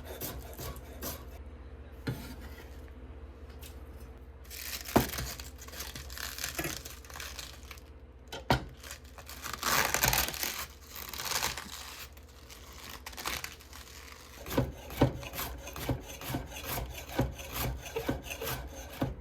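Hand food preparation with kitchen utensils: two stretches of scraping and rubbing, then a run of light clicks and knocks.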